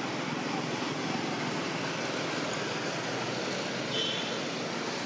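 Steady outdoor background noise, an even hiss-like rumble, with a faint short high chirp about four seconds in.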